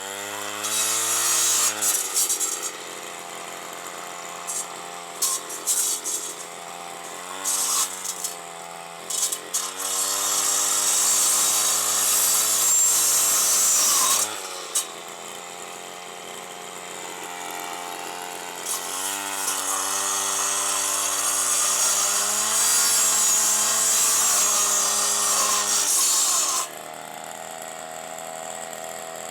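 Stihl FS 160 two-stroke brushcutter with a chainsaw-tooth blade revving up and biting into thorny branches, dropping back to a lower speed between cuts. Two long cuts of several seconds each, with short bursts of revving in between.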